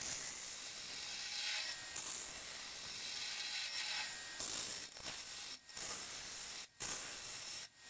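Bowl gouge cutting into a honey locust burl bowl spinning on a wood lathe: a steady hiss of shavings coming off the wood, broken by a few short pauses in the second half.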